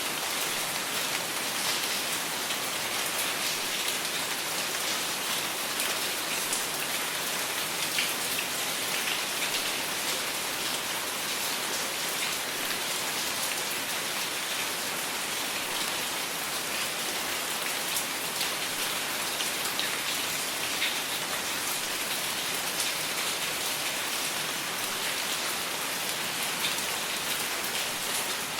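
Steady rainfall, a dense even hiss of raindrops hitting a surface, with many small individual drop ticks.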